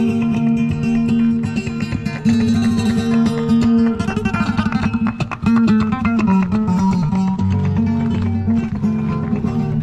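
Flamenco-style acoustic guitar playing: quick plucked runs and strums over held low notes.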